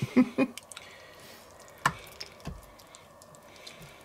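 Soft, wet sounds of a serving spoon and knife working saucy layered rouladen out of a Petromax FT3 cast-iron Dutch oven, with one sharp clink of metal on the pot about two seconds in and a dull knock shortly after.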